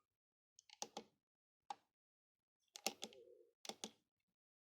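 Sharp plastic clicks in four short groups: buttons on a JVC KD-G351 car radio head unit being pressed.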